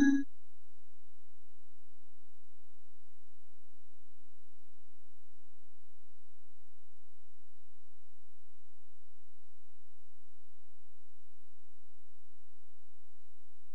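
A steady low electronic tone with faint higher overtones, unchanging in pitch and loudness.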